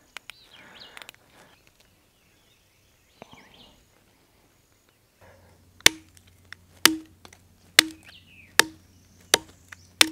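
Hatchet striking wood in steady blows, six sharp knocks about a second apart, each with a short ring, starting about six seconds in. Before them there is only faint rustling.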